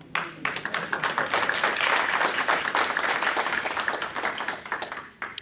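Audience applause, many hands clapping at once. It starts suddenly, is loudest about two seconds in, and dies away near the end: the welcome for a speaker who has just been introduced.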